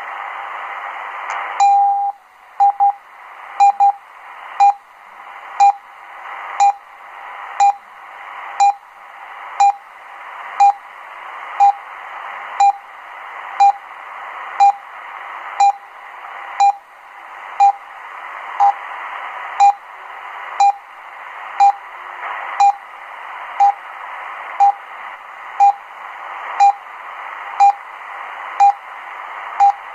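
RWM Moscow time signal on 9996 kHz shortwave, heard through a Degen DE1103 receiver. Static hiss gives way, just under two seconds in, to a longer half-second minute pulse, followed by short beeps once a second, a few of them doubled to carry the DUT1 code. The hiss swells back between the beeps.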